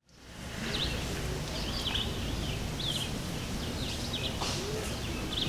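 Outdoor ambience before the siren sounds: small birds chirping repeatedly over a low rumble, with faint voices of people in the background.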